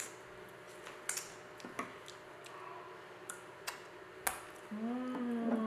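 A few light clicks and taps of a metal spoon against an open tin can as it scoops out the thick contents. Near the end comes a long hummed "mmm" of someone enjoying the taste.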